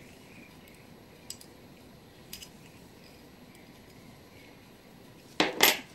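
Light clicks of a brass clock movement and small tools being handled during reassembly, with a louder clatter of two quick knocks near the end.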